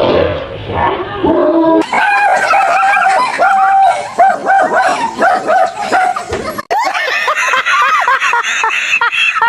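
A dog yipping and barking in a rapid run of short, high calls, with some whining. The sound breaks off abruptly twice, where the clip changes.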